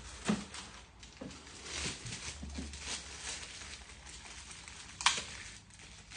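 Packaging rustling as a box is rummaged through and a golf wedge is lifted out, with two sharp knocks, a louder one about five seconds in.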